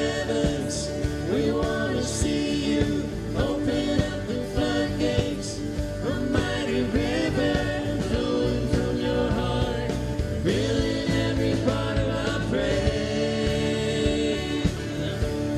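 Live contemporary worship band playing a song: a man and a woman singing into microphones over acoustic guitar, electric guitar, bass guitar and a drum kit.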